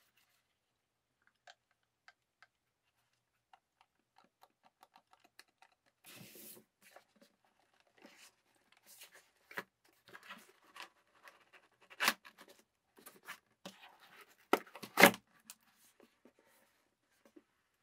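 Cardboard packaging being handled: a boxed headset and a cardboard insert slid out of a box, with scraping and rustling and a few sharp knocks of cardboard, the loudest near the end. Faint light clicks before the handling starts.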